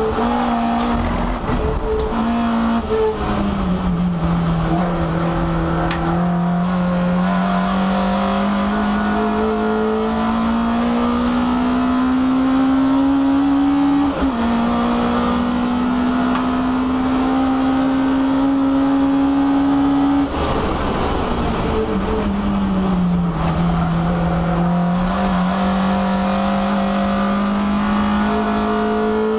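Peugeot 306 race car's four-cylinder engine heard from inside the stripped cabin, pulling hard with the revs climbing slowly for many seconds. A brief dip about halfway through marks a quick upshift. Past the two-thirds mark the throttle is lifted sharply, and the revs step down through downshifts before picking up and holding steady again.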